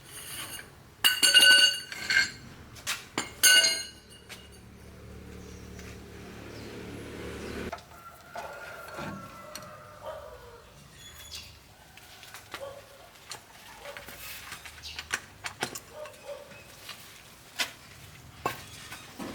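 Metal clinking and ringing for a few seconds, then a steady low hum lasting about four seconds, followed by scattered light knocks and clicks.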